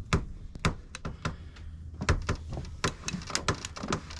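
Irregular hard knocks and clacks, a dozen or so, from the lifted boat engine and its tackle being handled and set down, over a low steady hum.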